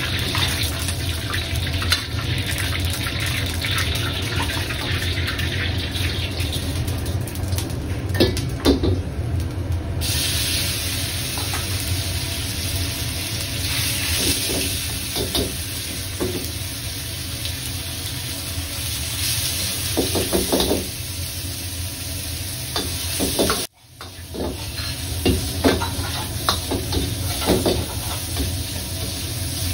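Pork jowl slices sizzling in hot oil in an iron wok over a gas burner, with a steady low hum underneath. A metal ladle scrapes and knocks against the wok now and then as the meat is stir-fried. The sound cuts out briefly about two-thirds of the way through.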